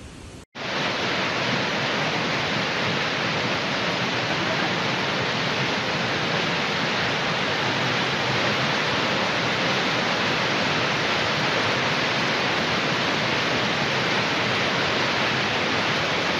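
Muddy flash-flood torrent rushing over rocks and boulders, a loud, steady rush of water that starts abruptly after a brief cut about half a second in.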